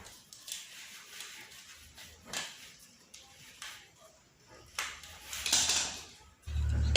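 Scattered small clicks, taps and rustles of hands handling electrical fittings and wires. A longer, louder scraping rustle comes about five and a half seconds in.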